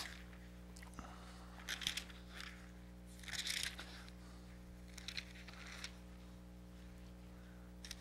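Bible pages being turned and handled: soft paper rustles about two, three and five seconds in, over a low steady electrical hum.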